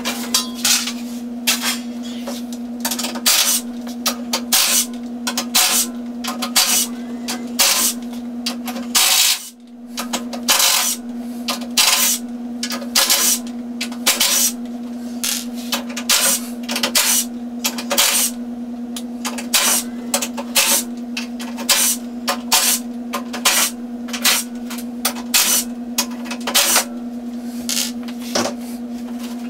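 Cordless drill running steadily at one pitch against the sheet-metal panel of a furnace heat exchanger, with sharp metallic clicks and scrapes about every half second to a second. The motor stops briefly about nine seconds in, then runs on.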